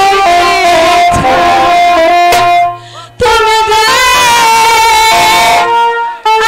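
Instrumental music: a melody of held notes on a string instrument, breaking off briefly about three seconds in and again just before the end.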